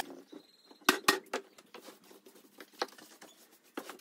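A few light, sharp clicks and taps: three in quick succession about a second in and another near three seconds, small hand tools and containers being handled on the tabletop.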